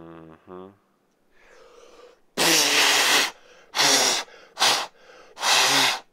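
A person's loud breath bursts close to the microphone, huffing or blowing out hard, four blasts over about three and a half seconds starting a little over two seconds in.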